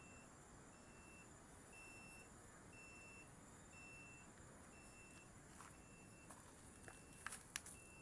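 Faint high-pitched beep repeating about once a second, each note about half a second long, over a faint high hiss; a few sharp clicks near the end.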